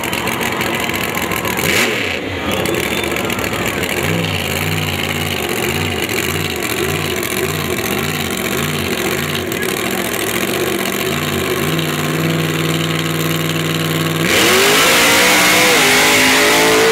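King Sling mud truck's engine idling with a rhythmic, pulsing beat, then held at a steady higher speed. About three seconds before the end it opens up to a loud full-throttle rev, the loudest part.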